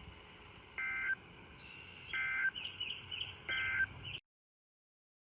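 NOAA Weather Radio sending the EAS end-of-message code that closes the severe thunderstorm warning: three short, shrill two-tone digital data bursts about 1.3 seconds apart. Faint chirps come between the last two bursts, and the sound cuts off suddenly about four seconds in.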